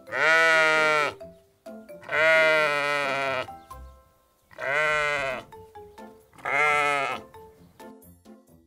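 Sheep bleating four times, each call about a second long, over quiet background music.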